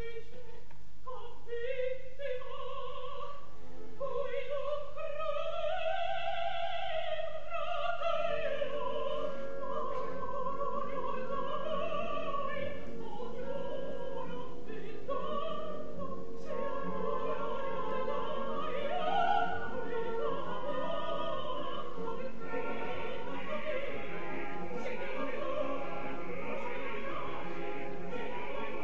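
Operatic soprano singing with wide vibrato over an orchestra. It opens with short notes, then a long held high note that swells up and falls away. From about eight seconds in, the orchestra fills out beneath the voice as she sings on.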